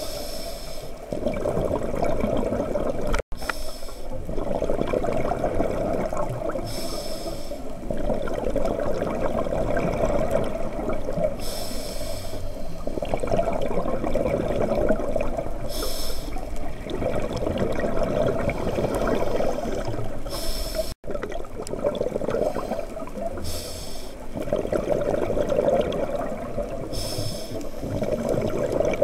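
Scuba diver breathing through a regulator underwater. A short hiss of inhalation comes about every four seconds, and each is followed by a long rush of exhaled bubbles.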